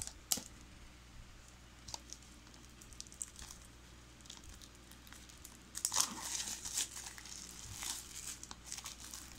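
Clear plastic wrap being torn and crinkled as it comes off a Blu-ray case. There are a few light clicks at first, then a busier stretch of crinkling and tearing from about six seconds in.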